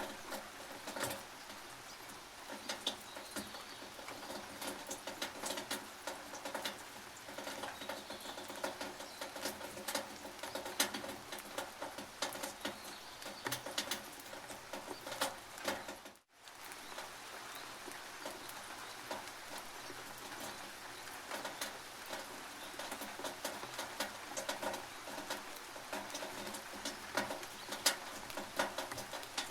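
Rain on a tin roof: a steady hiss of rain with many individual drops and drips striking the metal as sharp clicks. The sound cuts out for a split second about sixteen seconds in.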